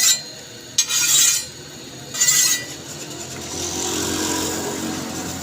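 A hand file rasping over a steel toka fodder-cutter blade in three strokes about a second apart. Then a steady low mechanical hum swells and slowly fades.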